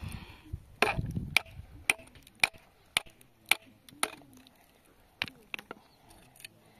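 A run of sharp chopping or striking knocks, about two a second, softer and sparser in the last couple of seconds.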